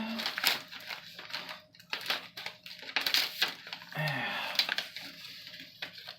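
A dice-kit parcel being opened by hand: rustling, crinkling and tearing of the packaging, with many small clicks and taps.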